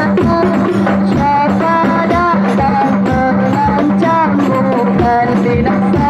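A woman singing sholawat, an Islamic devotional song in praise of the Prophet, into a microphone, with a regular drum beat behind her and a steady low hum underneath.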